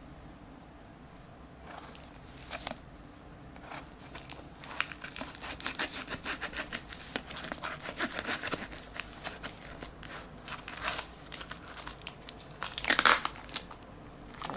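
Clear plastic packing-slip pouch and tape being peeled and torn off a cardboard shipping box: irregular crinkling and ripping that starts about two seconds in, with the loudest rip near the end.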